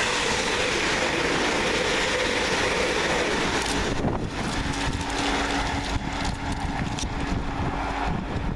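Two coupled Class 350 Desiro electric multiple units running past, a loud rushing rail noise that drops away about four seconds in, leaving a fainter rumble with scattered wheel clicks.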